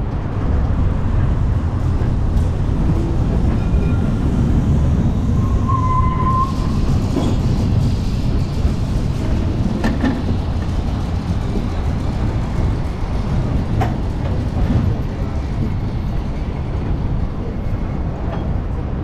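Vintage double-decker electric tram running along its track, heard from the roof as a steady low rumble with wind on the microphone. A brief high tone sounds about six seconds in, and a few sharp clicks come later.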